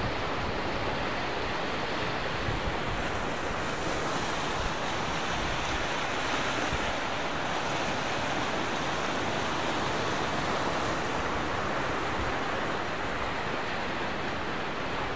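Steady wash of sea surf on a rocky shore, with wind noise on the microphone.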